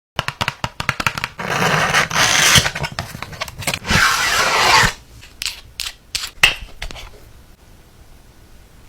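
Hands working craft materials: a quick run of clicks and taps, then two long stretches of rubbing or scraping, then a few scattered taps that die away.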